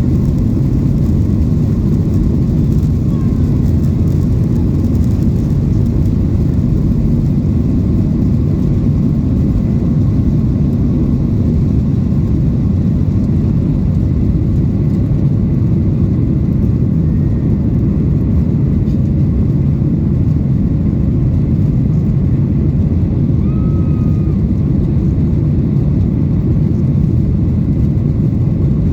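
Steady low roar of a Boeing 737-900ER's CFM56-7B jet engines and rushing air, heard inside the passenger cabin.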